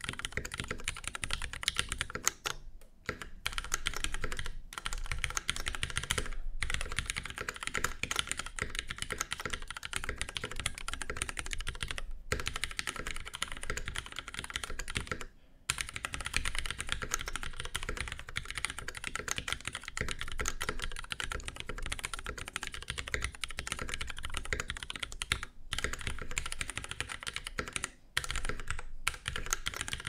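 Fast, continuous typing on a Mechmini2 mechanical keyboard with lubed vintage Cherry MX Black linear switches, Sprit 63.5 g springs and a 1.5 mm brass plate. The keystrokes form a dense stream of clicks, broken by a few short pauses.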